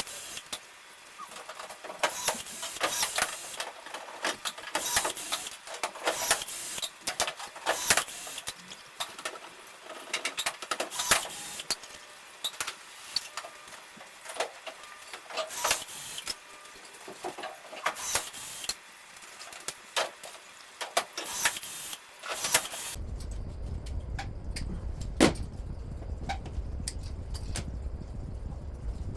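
Irregular clicks and knocks of hand work on a race car. About 23 seconds in they give way to a steady low hum with only a few scattered clicks.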